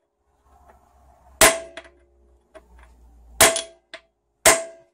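Three sharp metallic taps of a mallet on a steel punch held against a seized Torx bell-housing bolt, each ringing briefly: shock-tapping to break the bolt free. The first comes about a second and a half in, the other two close together near the end.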